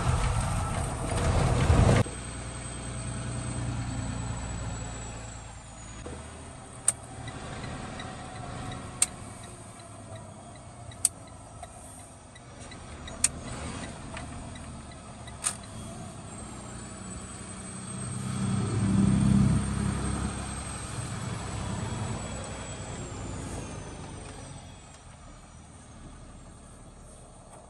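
Inside a box truck's cab: loud road noise at highway speed for about two seconds, then a quieter engine running low as the truck creeps along. Five sharp clicks come about two seconds apart, and the engine swells briefly a little past the middle.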